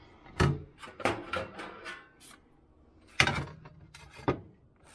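Knocks and clatter of a plate being taken out of an open countertop toaster oven, several separate clunks, the loudest a little past three seconds in.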